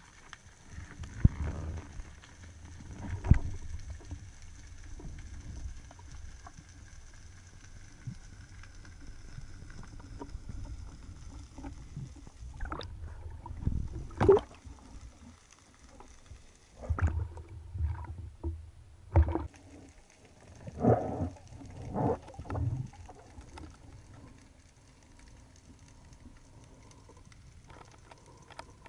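Underwater and surface water sounds from a speargun-mounted camera on a diving spearfisher: dull thumps and knocks while underwater, then water splashing and sloshing as he breaks the surface about halfway through, with a cluster of loud splashy bursts a few seconds later. A faint steady high tone runs underneath most of the time.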